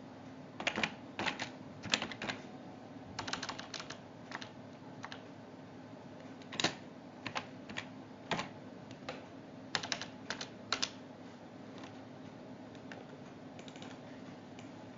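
Computer keyboard typing and mouse clicks, irregular single taps and short runs for about the first eleven seconds, then stopping and leaving a faint steady hum.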